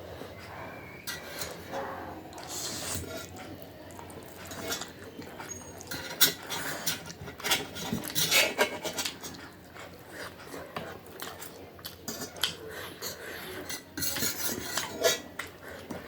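Eating utensils clicking and scraping against a dish while noodles are eaten, in irregular clusters. The clicks are thickest around the middle and again near the end.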